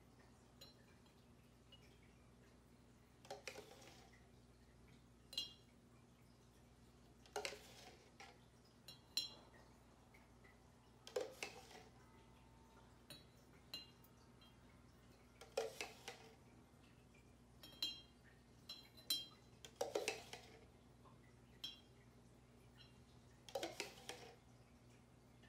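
Metal spoon stirring in a plastic cup of sugar water, with a sharp knock against the cup about every four seconds and light clinks between.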